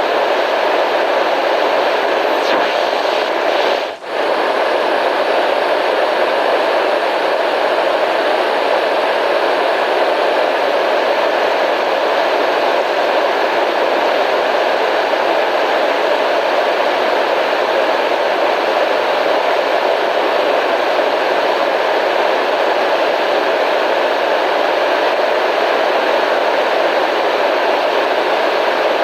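Steady white-noise hiss, even and unbroken, with one brief dropout about four seconds in.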